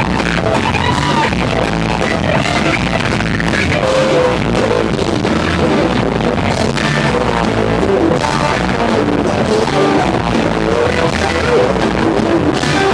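Live rock band playing, with an electric guitar lead of long, bending notes over bass and drums.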